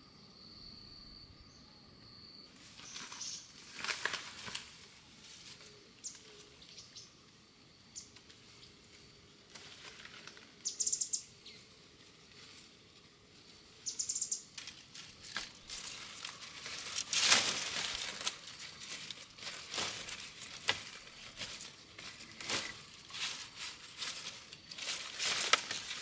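Leafy bamboo stems and dry bamboo leaves rustling and crackling as someone pushes through them, irregular and growing busier and louder from about halfway. An insect's steady high tone runs for the first couple of seconds, and there are a few short bird chirps.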